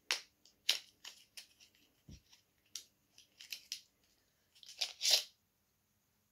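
A small cardboard box and its packaging handled and opened by hand: a series of short scrapes and rustles of card, the loudest about five seconds in, with a soft low bump around two seconds in.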